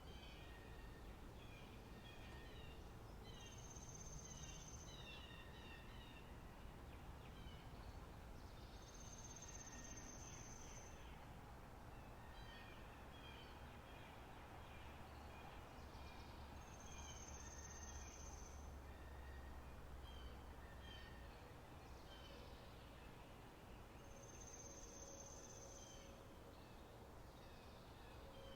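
Faint spring-meadow ambience of birdsong: many short twittering chirps, and a high thin note held for about two seconds that repeats every seven or eight seconds.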